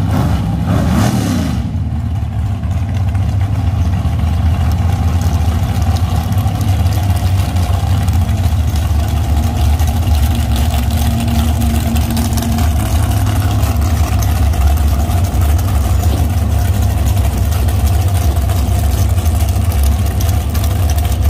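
Engine idling with a loud, steady deep rumble, after a brief rev-like burst of noise in the first second or two.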